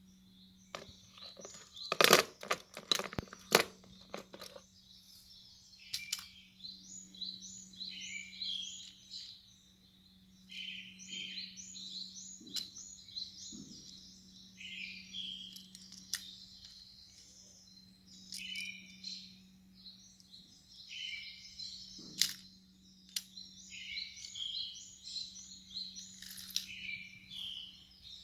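Small birds chirping in short, repeated phrases, with a cluster of sharp clicks about two to four seconds in and another later on, over a steady low hum.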